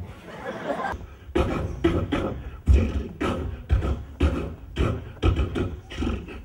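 A rhythmic percussive beat, about two strong low strokes a second, starting about a second in, with busier sound between the strokes.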